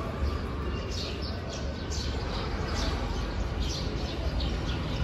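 Small birds chirping, many short high calls a few times a second, over a steady low rumble.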